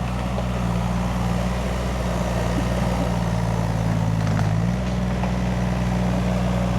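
Small excavator's engine running steadily, its note shifting slightly about four and a half seconds in.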